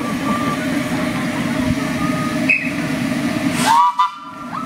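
Miniature railway train running on the track, with a short locomotive whistle blast about three-quarters of the way through that rises briefly in pitch and cuts off.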